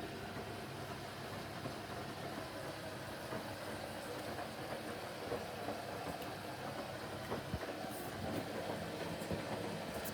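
Haier washing machine running on its Express 15 cycle: a steady mechanical churning noise with small irregular clicks and a couple of sharper ticks near the end.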